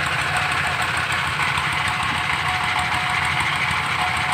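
Stationary diesel engine of a well-drilling rig running steadily, with an even rhythmic beat.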